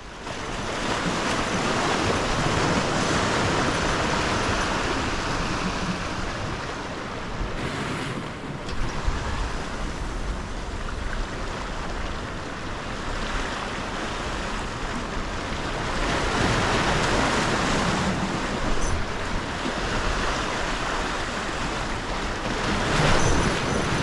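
Pacific Ocean surf breaking and washing ashore, a steady rush that swells louder and eases off in slow waves.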